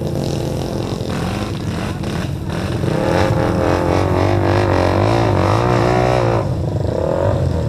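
Dirt bike engine running, revved up from about three seconds in with an uneven, wavering pitch for a few seconds, then easing back.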